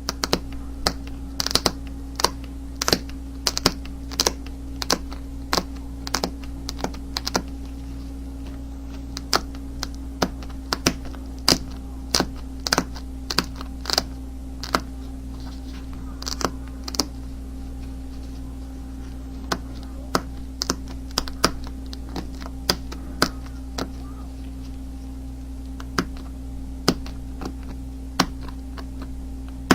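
A thin flint flake being knapped: a long series of sharp, irregular clicks as small flakes snap off the edge, with a few short pauses. A steady low hum runs underneath.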